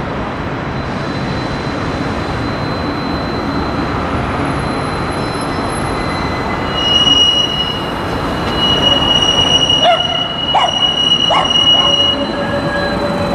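Munich low-floor tram rounding a curve in the street: its wheels squeal on the curved rails in a high steady whine from about halfway on, and a few sharp clacks sound from the wheels on the track as it draws near, over steady street traffic noise.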